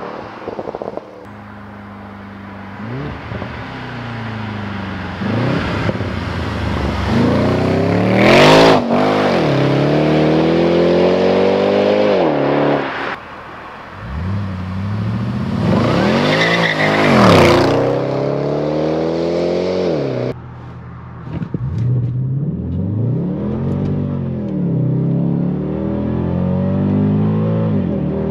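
Jaguar XFR's supercharged 5.0-litre V8 revving hard and easing off again and again, its pitch sweeping up and down, with two louder rushing surges, one about a third of the way in and one past halfway.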